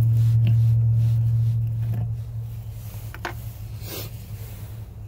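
A steady low hum, loudest at first and fading about two seconds in, with a few light clicks and scrapes as the plastic pour-spout cap of a pail of hydraulic oil is unscrewed and opened.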